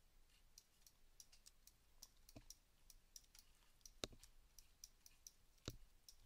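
Faint, scattered clicking of a computer mouse and keyboard, with three louder clicks at about two and a half, four and five and a half seconds in.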